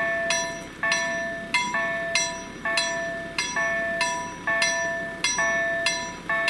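Level crossing warning bell ringing in an even rhythm, about three strikes every two seconds, each strike ringing out before the next: the crossing is closed for an approaching train.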